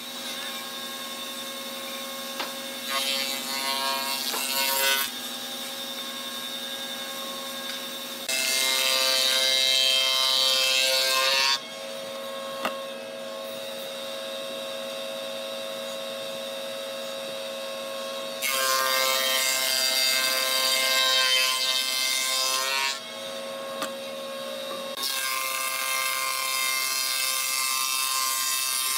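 Electric hand planer mounted upside down in a bench, its motor running with a steady whine while red hardwood boards are fed across the cutter head. It cuts louder and harsher in four passes of about two to four seconds each.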